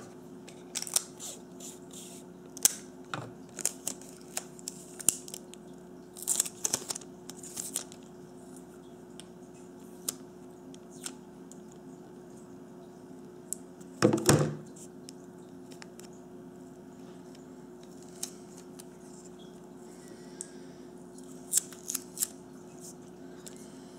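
Scotch tape being pulled off, torn and wrapped around two AA batteries held together: scattered short rips and rustles, the loudest and longest rip about fourteen seconds in. A steady low hum runs underneath.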